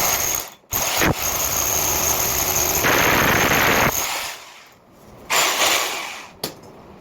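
Electric drill cutting into a masonry wall with a 65 mm concrete hole saw: a high motor whine over the grinding of the bit. It stops for a moment just after the start, runs about three seconds with a harsher, louder grinding near the end of that run, then gives one short burst about five and a half seconds in.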